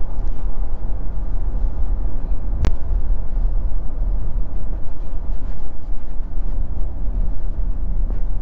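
In-cabin driving noise of a 2022 Nissan Frontier Pro-4X pickup with its 3.8-litre V6, cruising on a city street: a steady low rumble of engine and tyres. A single sharp click sounds about two and a half seconds in.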